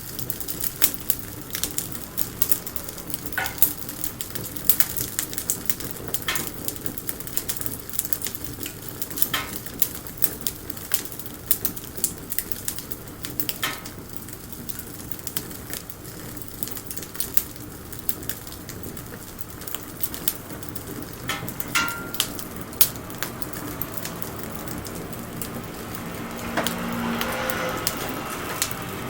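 Wood fire crackling: irregular sharp pops and snaps over a steady hiss, swelling briefly near the end.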